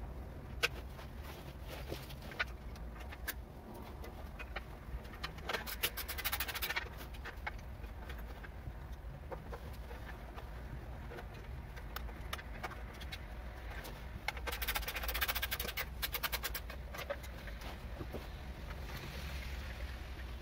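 Hand work on a small Lifan engine: scattered light clicks and knocks of metal parts and tools, with two runs of rapid ratchet-like clicking, about a quarter of the way in and again past the middle.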